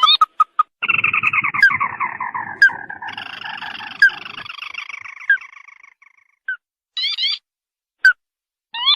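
Ruddy-breasted crake (tikusan merah) calls played as a bird-hunting lure: short rising notes, then from about a second in a long falling trill overlapped by a second trill, which fades out after a few seconds. Single notes and a quick cluster of rising notes follow near the end.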